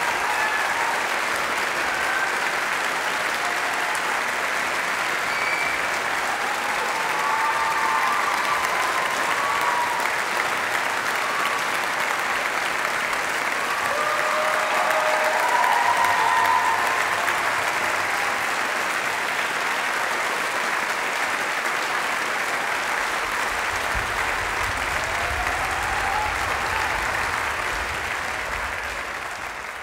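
Large concert-hall audience applauding steadily at a curtain call; the applause fades out at the very end.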